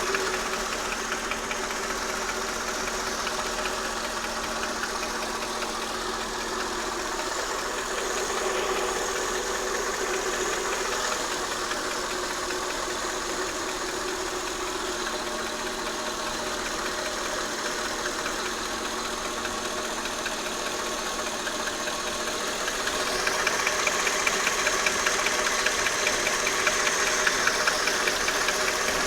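Mercedes-Benz M113 4.3-litre V8 idling warm, with a light, rhythmic knock from the left side of the engine; the ticking gets louder about three-quarters of the way through. It comes only once the engine is warm and goes away with a little throttle, and the owner does not yet know the cause: a new harmonic balancer did not cure it.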